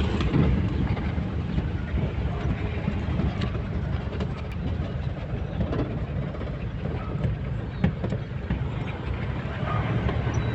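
A vehicle in motion: a steady low rumble with scattered light clicks.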